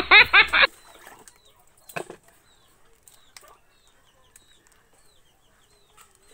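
A woman's voice briefly at the start, then a chicken clucking once about two seconds in, with faint high bird chirps and a few light clicks.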